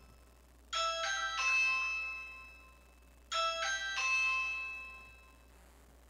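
Ring video doorbell chime sounding as its button is pressed: a bright multi-note ding-dong melody played twice, each time ringing out and fading over about two seconds.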